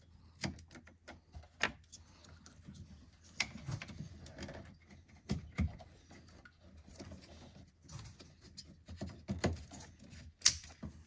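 Plastic wiring-harness connectors being pushed into the battery-top fuse block, with scattered plastic clicks and knocks. The sharpest click comes near the end; a click is the sign that a connector has latched.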